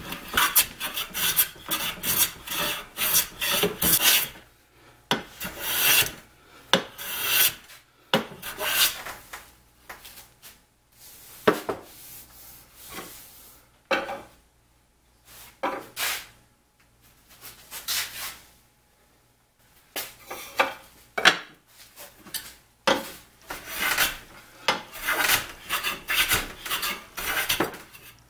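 Metal bench plane shaving a cherry board, flattening its twisted face: short rasping strokes come in quick runs, with a sparser, quieter stretch midway.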